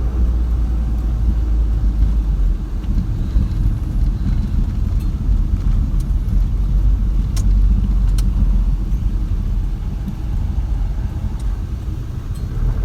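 Steady low rumble of a van's engine and tyres heard from inside the cab while driving on a main road, with a few faint ticks.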